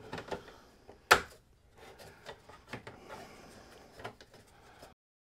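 Plastic dust cover of a 1990–96 Corvette instrument cluster being lifted off and worked free of its plastic tabs: one sharp plastic click about a second in, the loudest sound, then fainter clicks and rubbing. The sound cuts out to dead silence near the end.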